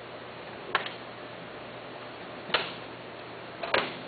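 Three sharp clicks over a steady hiss: one about a second in, one at two and a half seconds, and a quick double click near the end.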